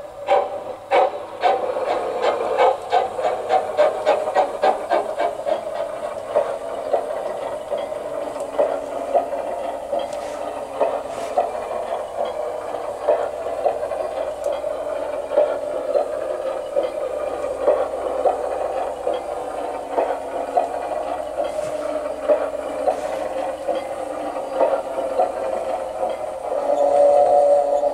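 Steam-locomotive sound from a Zimo MX699 sound decoder running Mathias Henning's sound project in a garden-railway model of the Saxon IK tank locomotive, played through the model's small speaker. It gives quick, even chuffs with hiss for the first several seconds, then sparser chuffs under a steady hiss, and a held tone near the end.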